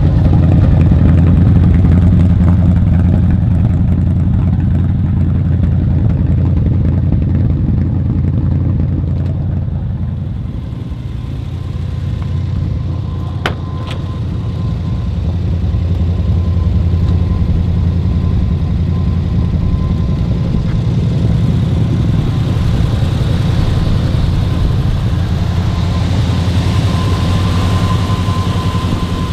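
1949 Ford F1's flathead V8 with Offenhauser heads idling steadily, with a single sharp click about halfway through.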